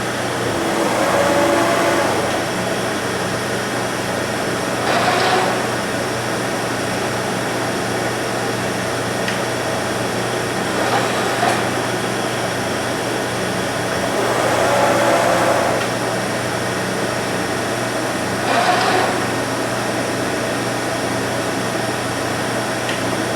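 DeVlieg 43K-72 machine tool running through a programmed drilling cycle: a steady machine hum with a louder swell of noise every few seconds, about five times.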